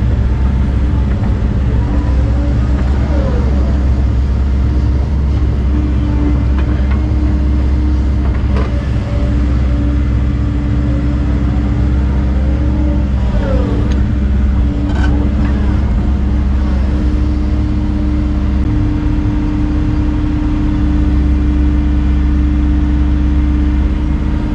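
Volvo excavator's diesel engine running steadily under load, with its hydraulics whining up and down in pitch several times as the bucket knocks dirt into a trench.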